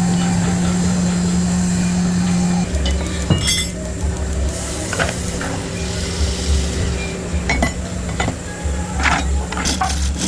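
Workshop machine running with a steady hum that drops away a bit under three seconds in, followed by scattered knocks and clinks of tools and parts being handled.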